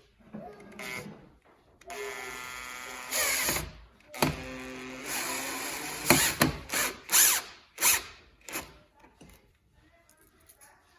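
Power drill driving the screws of a door hinge in: two runs of about two seconds each, then several short bursts as each screw is driven home.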